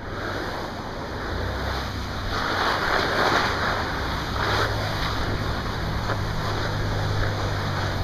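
Steady outdoor noise of wind on the microphone and surf, with a low rumble, swelling for a few seconds about two seconds in.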